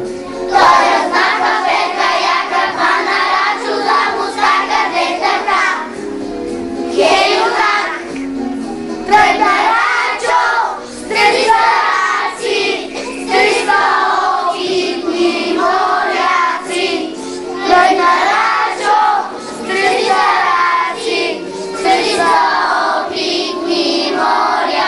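A group of young children singing a song together, with music accompanying them.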